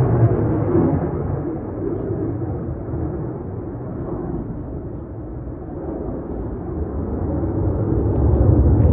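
Jet rumble from a Eurofighter Typhoon flying its display, fading around the middle and swelling again near the end as the jet comes round.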